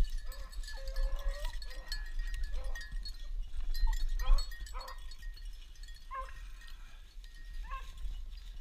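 Beagles baying and yelping on a rabbit's trail in short calls repeated every second or so, over a steady low rumble on the microphone.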